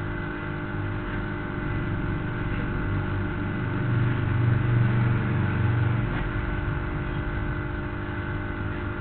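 Steady electrical hum and hiss of the hall's sound system. A low rumble swells a few seconds in and fades again.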